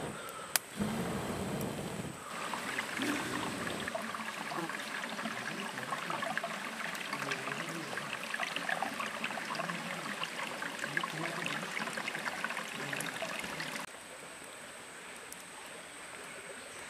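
Shallow stream trickling and splashing over rounded stones, a dense patter of small water sounds, dropping away about three seconds before the end. It is preceded by a low rush of breath blown onto campfire embers and a single sharp click.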